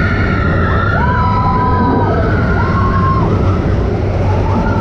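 Expedition Everest roller coaster train running on its track: a loud, steady rumble with riders' long screams rising and falling over it, several in a row.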